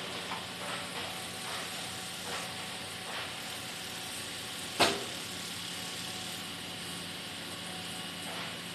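SANY excavator's diesel engine running steadily, with a few faint knocks and one sharp, loud metallic clank about five seconds in.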